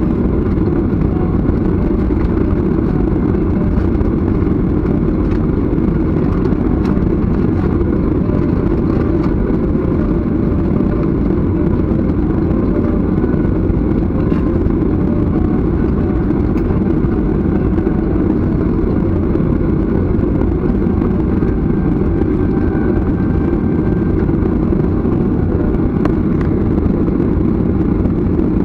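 Steady low rumble inside a jet airliner's cabin as it taxis with its engines at idle.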